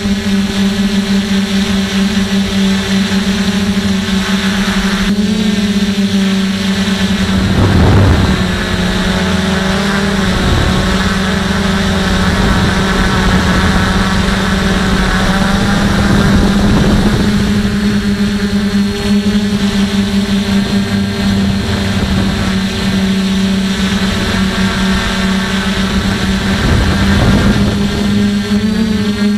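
DJI F450 quadcopter's electric motors and propellers humming steadily at one pitch, picked up by the camera mounted on the drone. Several short gusts of wind rush over the microphone along the way.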